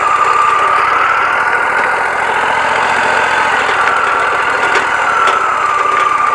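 Woodmizer LT40 Wide band sawmill running, with a steady high whine that wavers slightly in pitch over the engine noise.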